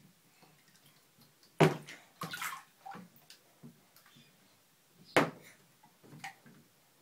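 Bathtub splashing and knocking as a baby plays with a plastic toy boat in shallow bathwater: a few sharp hits, the loudest about one and a half, two and a half and five seconds in, with fainter ones between.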